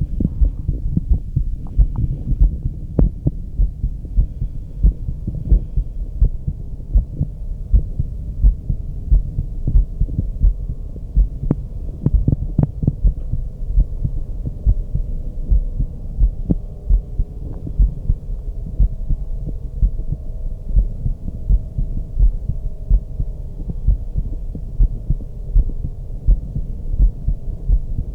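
A woman's heartbeat heard through a stethoscope: a steady, even run of low beats.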